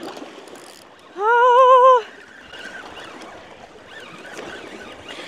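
Steady wash of water and breeze. About a second in, a woman's drawn-out wordless cry rises and falls, lasting under a second.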